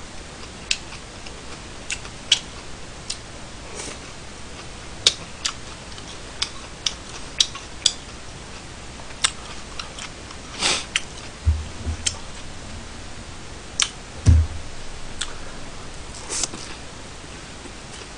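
Eating sounds close to a microphone: irregular sharp clicks and smacks from chewing and from disposable wooden chopsticks on plastic takeout trays, with two dull low thumps about eleven and fourteen seconds in.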